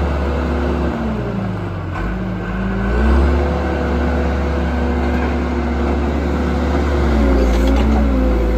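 2003 John Deere 410G backhoe's diesel engine running. Its pitch drops about a second in, comes back up near three seconds, then dips and recovers again near the end.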